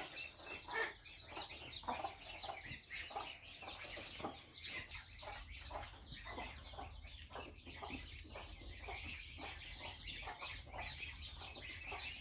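Chickens clucking and chirping in many short, quick calls, over a faint low hum.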